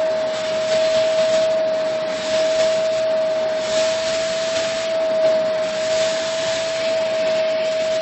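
Vacuum cleaner running steadily, a constant whine over a rush of air, with its bare wand (carpet beater detached) sucking along a cat's fur. The air noise swells and eases slightly as the wand is stroked over the cat.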